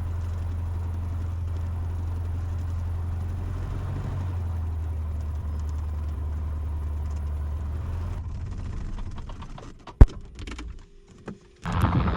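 The Cessna 150's four-cylinder Continental O-200 engine drones steadily at low power on the approach to landing, its pitch stepping slightly lower about four seconds in. The drone falls away from about eight seconds in, and a single sharp knock comes about ten seconds in.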